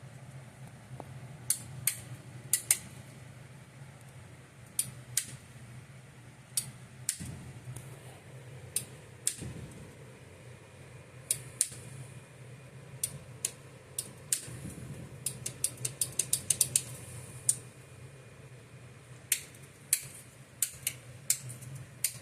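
Switches and buttons on an elevator control panel clicking one after another as they are flipped and pressed, with a quick run of clicks just past the middle. A steady low hum runs underneath.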